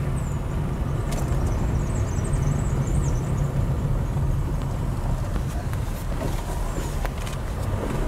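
Steady low rumble of a car's engine and tyres as it drives slowly along a road, heard from inside the car.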